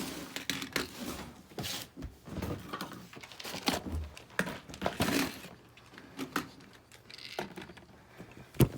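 Handling noises: rustling and scattered light knocks and clicks as things are moved and set in place, with one sharp knock near the end.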